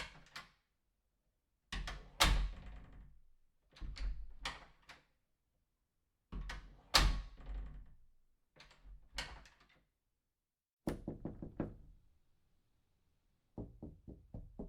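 Doors being opened and shut again and again: latch clicks followed by solid closing thuds, the loudest about two and seven seconds in. Near the end a quick run of about five light knocks.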